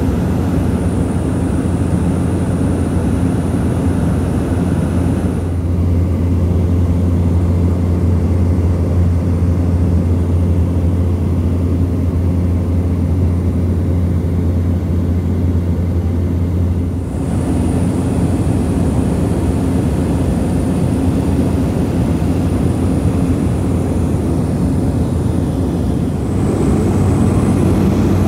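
Turboprop airliner's engines and propellers droning steadily, with a deep hum and a thin high whine. The tone changes abruptly about five, seventeen and twenty-six seconds in.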